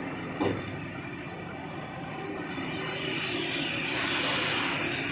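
Small petrol engine of a portable power sprayer running rough, growing louder about halfway through. The mechanic suspects the roughness comes from a worn crankshaft bearing.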